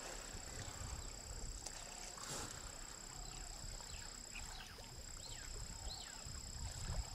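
Outdoor wildlife ambience: a low rumble, a steady high-pitched whine, and a few faint short chirps about halfway through.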